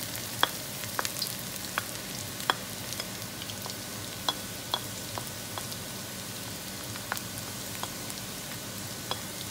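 Minced garlic frying in hot oil in a wok: a steady sizzle with scattered sharp pops, the first step of sautéing.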